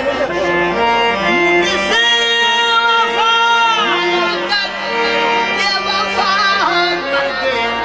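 Qawwali music: harmoniums playing a melody of held notes that step from pitch to pitch, with a male voice singing over them.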